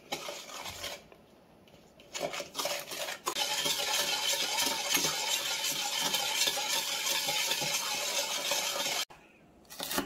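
A metal spoon stirring a thick soy-sauce braising sauce in a stainless steel mixing bowl: a few light taps at first, then fast, continuous scraping and clinking of spoon against steel for about six seconds, which stops suddenly.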